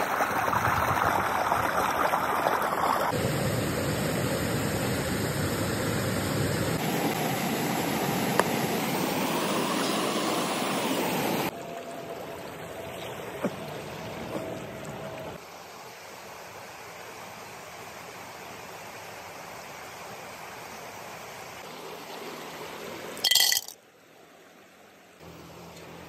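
Shallow stream water running over rock, a steady rushing that drops to a quieter level about eleven seconds in and again about fifteen seconds in. A brief loud crackle comes near the end.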